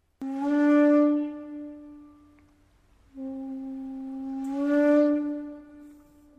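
Shakuhachi bamboo flute playing two long, breathy notes, each swelling louder and then fading away, with a slight upward bend in pitch as it swells. A third note begins right at the end.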